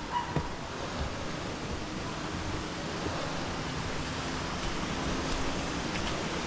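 Steady rushing noise, with a few light knocks about half a second in and a faint low hum through the middle.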